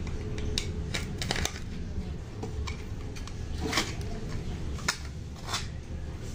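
Utility knife blade picking and scraping at a wall outlet plate to pry it loose, giving scattered light clicks and short scrapes at irregular moments.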